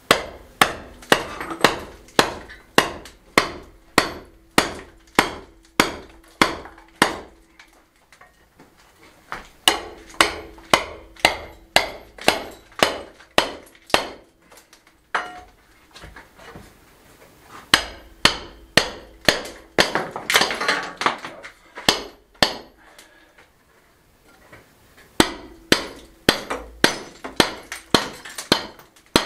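Steady hammer blows, about two a second in four runs with short pauses, knocking an old wooden window frame loose from its stone wall.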